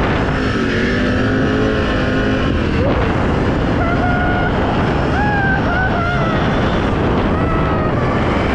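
Can-Am Renegade XMR 1000 ATV's V-twin engine running while riding along a dirt trail, with wind on the microphone. The engine note is steady at first, then shifts up and down in pitch in the second half.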